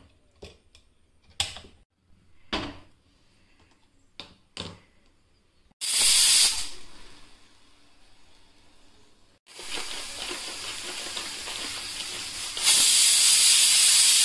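Prestige pressure cooker whistling on the stove: a few clicks from the lid and handle, then a short loud burst of steam hissing out past the weight about six seconds in. A steady hiss builds from about nine seconds, and a loud full steam whistle near the end shows the cooker is at pressure, each whistle counted toward the cooking time.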